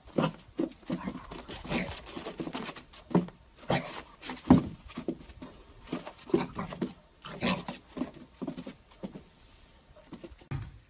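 Puppy giving short, repeated barks and yaps at its own reflection in a mirror, in irregular bursts.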